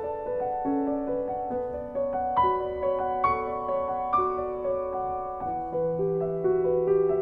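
Solo piano music: single notes struck one after another over held lower chords, at an unhurried pace.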